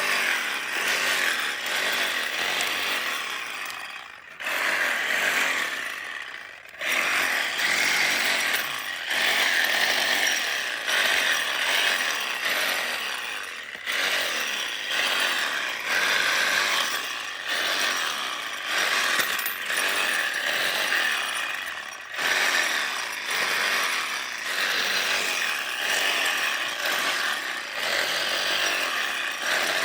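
Cordless DeWalt reciprocating saw running under load while cutting, with the blade's rapid back-and-forth rasp. It eases off briefly a few times before cutting on again.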